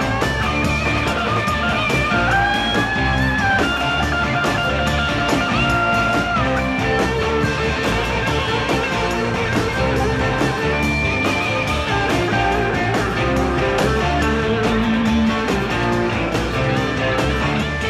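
Live rock band playing: electric guitars, bass guitar and drums over a steady beat, with a lead guitar line of held notes that bend in pitch.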